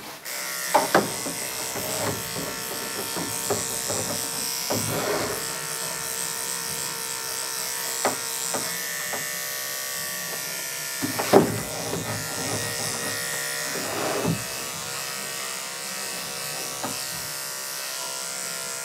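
Electric dog-grooming clipper with a #10 blade running steadily, buzzing as it shaves under a dense mat at skin level on a badly matted coat. A few short, sharp sounds cut through, the loudest about eleven seconds in.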